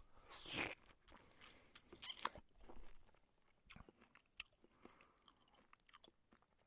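Close mouth sounds of someone eating noodles: soft wet chewing clicks and smacks, with a short breathy burst about half a second in.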